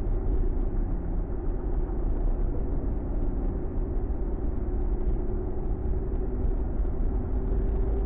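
Ford Mustang heard from inside the cabin while driving: a steady low engine and road rumble, with a faint engine tone that rises slightly near the end.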